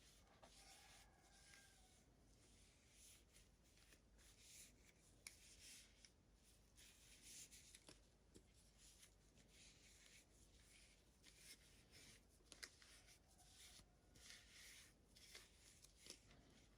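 Faint rustling and light clicks of small plastic toy packaging being handled and opened by hand.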